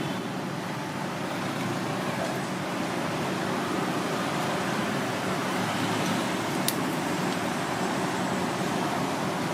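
Steady road-traffic noise, with engines humming low, and a single sharp click a little past the middle.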